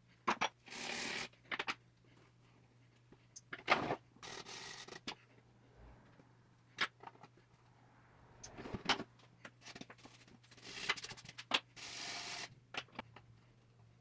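A small screwdriver scraping and picking at an old painted wooden box: several short scraping strokes with sharp clicks and taps of metal on wood between them.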